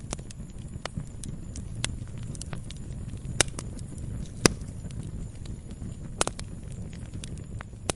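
Campfire wood burning, crackling with irregular sharp pops over a low steady rumble of flame; the loudest pops come about three and a half and four and a half seconds in, and a quick double pop just after six seconds.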